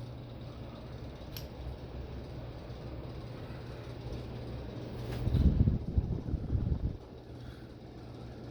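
Ceiling fans running at high speed with a steady low motor hum. A light click comes about one and a half seconds in, and about five seconds in a louder, uneven low rumble lasts for under two seconds.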